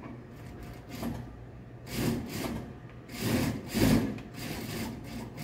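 Layers of fabric being slid and smoothed by hand across a sewing machine table: a few rubbing, rustling swishes in the second half, the last the loudest.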